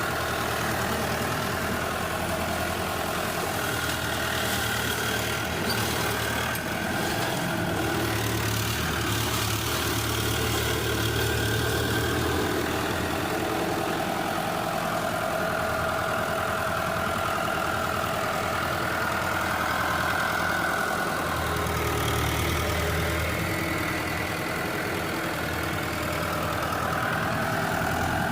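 Tractor engine running steadily, its low drone swelling and easing slightly.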